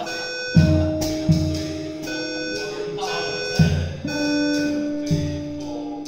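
Electric guitar and drum kit jamming in a jazz style, with held guitar notes and several low drum hits. Over the music a fire alarm sounds a high tone in short repeated pulses.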